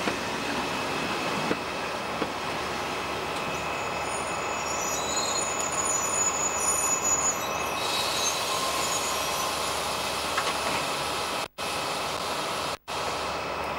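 Passenger train's coaches rolling slowly along the platform and coming to a stop, with high brake squeal from about a third of the way in to just past halfway. Near the end the sound cuts out briefly twice.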